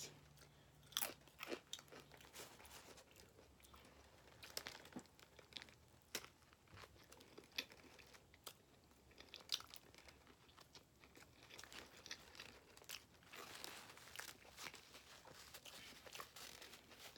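A person chewing food close to the microphone: faint, irregular wet clicks and crunches from the mouth.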